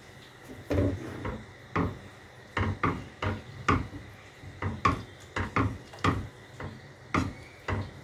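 A spatula scraping and knocking against a nonstick frying pan in quick, irregular strokes, about two a second, stirring a thick white sauce of butter, flour and milk.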